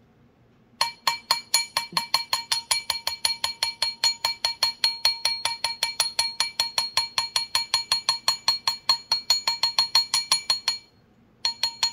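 Rapid light hammer blows, about six a second, on a sterling silver ring held on a steel ring mandrel, each with a bright metallic ring. This is the blunt face of a texturing hammer putting a hammered finish on the band. The tapping stops briefly near the end, then starts again.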